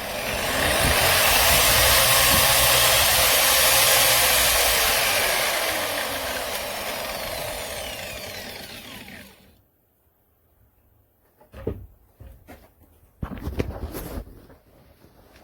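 Electric satin-finishing (burnishing) machine with a brush roller running loudly, then winding down with a falling pitch and stopping about nine seconds in. A few scattered knocks and clicks of handling follow.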